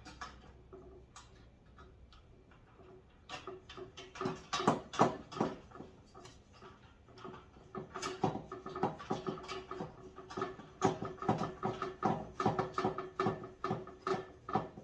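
Hand screwdriver tightening a screw into a metal tube of a tool rack: quick runs of small clicks and scraping squeaks, starting about three seconds in and getting busier about halfway.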